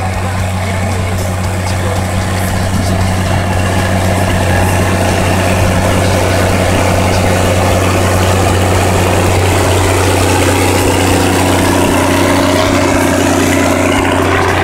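Ursus 1614 tractor's six-cylinder diesel engine running steadily under load as it pulls a disc harrow through dry soil. The drone grows slightly louder as the tractor comes near, with a higher steady tone joining it about ten seconds in.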